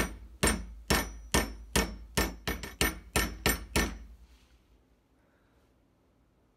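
Hammer tapping a small piece of brass down into the slot filed in an M3 cap screw head clamped in a vise. About a dozen sharp metallic taps come roughly two a second, quickening near the end, then stop about four seconds in.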